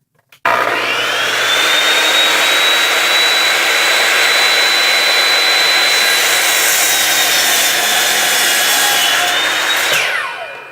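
Ryobi electric chop saw (miter saw) switched on: the motor's whine spins up quickly to a steady high pitch and runs for about nine seconds through a first cut into a board, sagging slightly in pitch in the second half, then winds down with a falling whine as the trigger is released near the end.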